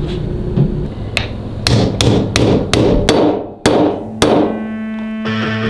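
Hammer blows driving a greased tapered roller neck bearing down onto the steering stem of a Harley-Davidson Dyna lower triple tree through a tube. There are about eight sharp metal strikes at roughly three a second, each ringing briefly. Background music comes in near the end.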